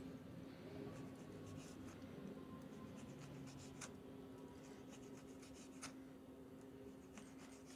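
A knife sawing through cooked beef steak and scraping on a wooden cutting board, faint, with a few light clicks. A steady low hum runs underneath.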